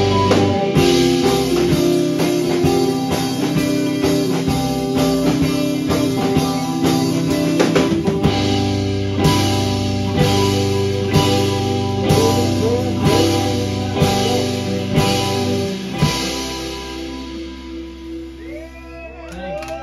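Live rock band playing: electric guitars and a drum kit with steady drum hits. About sixteen seconds in the drums stop and the music fades on ringing guitar.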